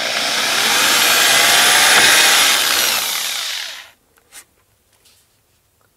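Handheld power tool cutting a screw slot into a wooden countertop. It runs for about four seconds and then cuts off.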